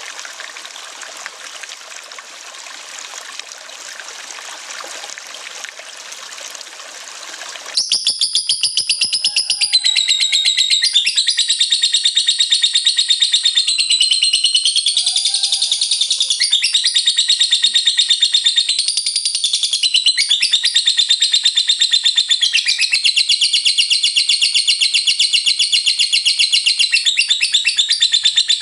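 Running water like a small stream for about the first eight seconds, cut off abruptly by a lovebird's ngekek: a long, unbroken, rapid high-pitched chattering trill.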